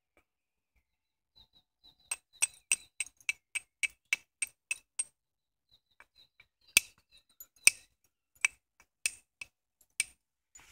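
Flint hand axe being knapped with a hammer: a quick run of about a dozen sharp clicking strikes, about three a second, knocking flakes off its edge. After a short pause come about six louder, more widely spaced strikes, the loudest a little before and a little after the middle.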